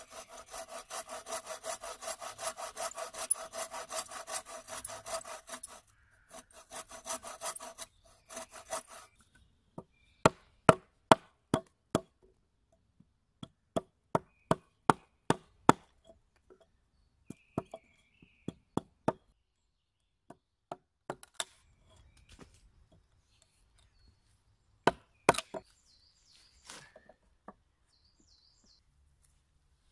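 Bow saw cutting through a wooden pole with quick back-and-forth strokes, pausing briefly once and stopping about nine seconds in. Then sharp wooden knocks in short clusters, louder than the sawing, as pieces of the pole-frame chair are handled and fitted.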